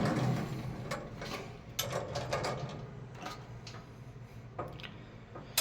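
Handling noise: scattered light clicks and taps, about seven of them, irregularly spaced.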